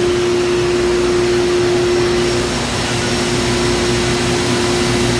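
Haas VF-2 CNC vertical mill running its warm-up program with the spindle turning: a steady machine whine and hum. A second, lower hum tone joins about two and a half seconds in.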